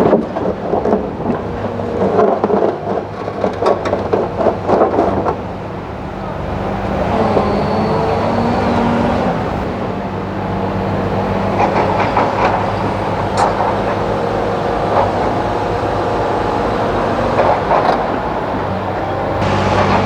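Heavy construction machinery's diesel engine running steadily, with dense metallic clanking and rattling over the first five seconds and scattered knocks afterwards.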